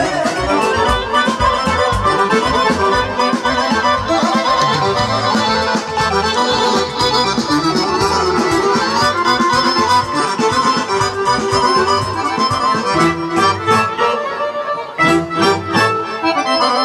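Live accordion playing a fast instrumental break of a Balkan folk song over a steady bass beat; the low beat drops out for a moment about two seconds before the end.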